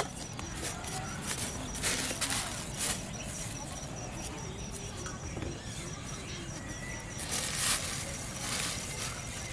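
Plastic bag rustling and crinkling as it is handled, in a cluster of crackles about two seconds in and again, louder, near the end.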